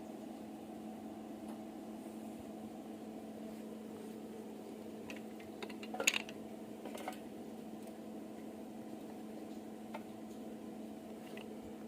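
Steady machine hum, like a welder's or fan's idle drone, with a few light metallic clicks and knocks, the loudest cluster about halfway through.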